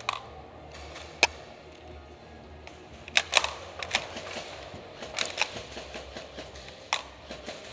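Airsoft guns firing: scattered sharp cracks, a lone one about a second in, then quick clusters of them.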